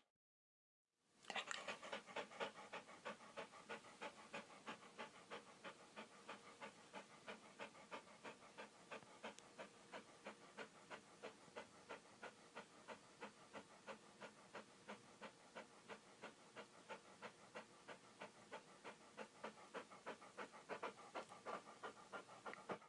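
A dog panting: quick, even breaths, about three a second, starting after a second of silence.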